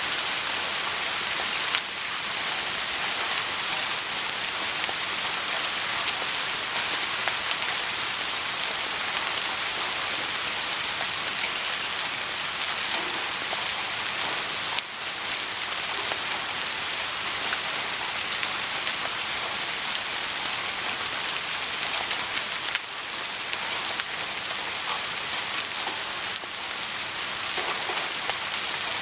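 Soft rain falling steadily: an even hiss of many small drops, with fine individual drop ticks and no thunder. The level drops slightly for a moment a few times.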